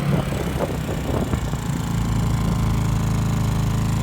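Westinghouse WH2000iXLT inverter generator's small engine running steadily on eco mode, uneven for the first second or so and then settling into an even hum.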